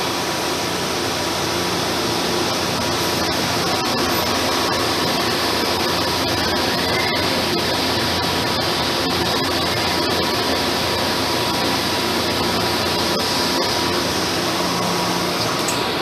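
2013 Hwacheon T2-2T-YSMC multi-axis CNC lathe running with its door closed: a steady hiss over a low hum, with scattered faint clicks.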